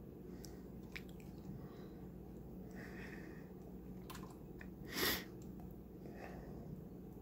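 Faint, scattered clicks of computer keyboard keys pressed to step through BIOS setup menus, over a steady low hum. About five seconds in there is a single short, louder breathy rush.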